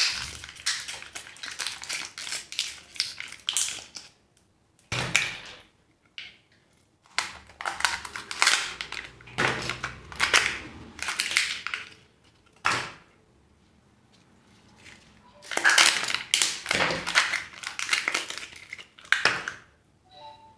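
Plastic and foil wrappers of surprise candy eggs crinkling and crackling in bursts as the eggs are unwrapped and opened, with short pauses between.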